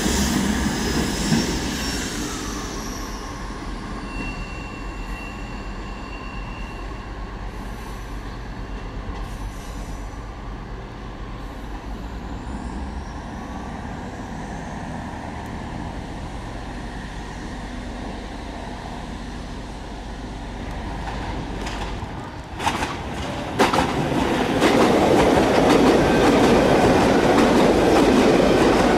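Trains at a railway station. A loud train sound fades away in the first few seconds, leaving a quieter stretch with a low steady hum. About 23 seconds in come two sharp clacks, then a train runs through loudly for the last five seconds, its wheels clacking over the rail joints.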